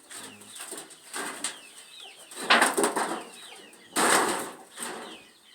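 Chickens flapping their wings in three rustling bursts, with a few faint high chirps between them.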